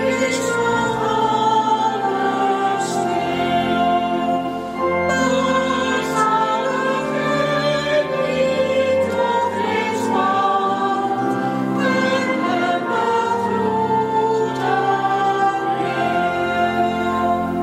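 Choir singing in slow, long-held notes.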